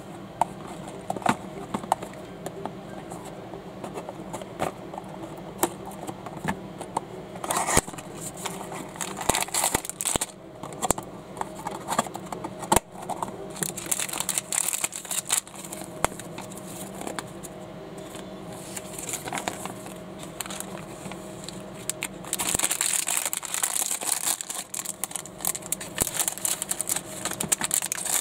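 A clear plastic bag of small plastic toy bricks crinkling as hands handle it, with scattered sharp clicks and taps. The crinkling gets louder and denser in the last several seconds.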